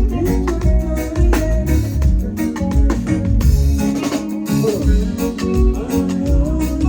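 Loud band music with a heavy bass line and steady drum beats.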